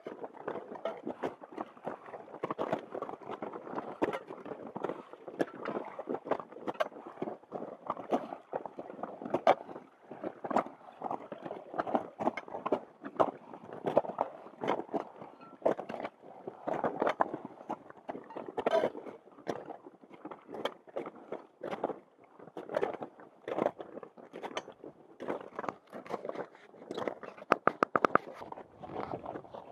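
Footsteps crunching and scraping on glacier ice as hikers walk, an irregular stream of crunches, with a quick flurry of sharp clicks near the end.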